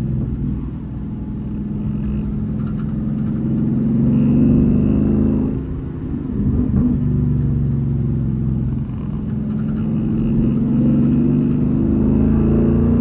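2014 Ford Mustang GT's 5.0 V8 engine running under way, its revs climbing and dropping back twice, about six and nine seconds in, before climbing again.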